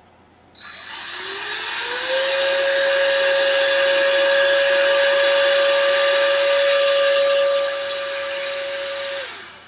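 Electric air blower blowing air over the iPad's freshly soldered charging port to drive out leftover cleaning alcohol. It is a steady rush of air with a motor whine that rises in pitch as it spins up about a second in, holds steady, then cuts off shortly before the end.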